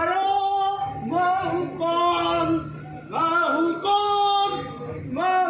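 Singing: a voice holding long notes in short phrases with brief breaks between them, over a steady low drone.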